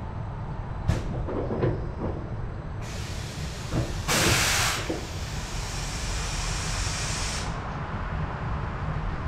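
Compressed air hissing out of a roller coaster train's pneumatic system at the station: a sharp blast about four seconds in, then a steadier hiss that stops a few seconds later. Two short clunks come first, near the start.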